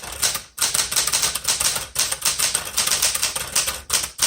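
Typing on a 1972 Smith Corona Classic 12 manual typewriter: a fast, steady clatter of keys and typebars striking, several strikes a second, with a short break about half a second in.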